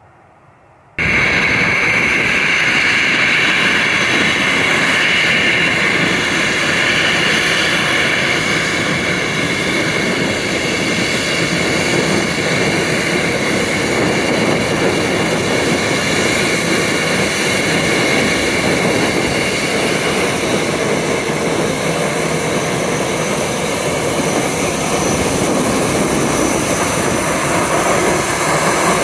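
Jet engines of an Airbus A320-family airliner running close by as it taxis, a loud steady rush with a high whine on top, starting abruptly about a second in.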